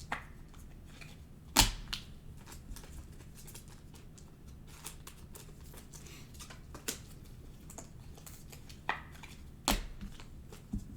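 Scattered sharp taps and clicks of trading cards being handled on a table, over a faint low hum. The loudest come about a second and a half in and near the end.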